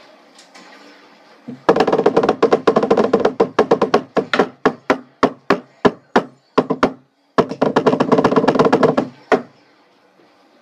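Drumsticks drumming on a wooden table top. Fast rolls start about a second and a half in, then come separate sharp strokes, then a short pause and a second fast roll, ending on a few single hits.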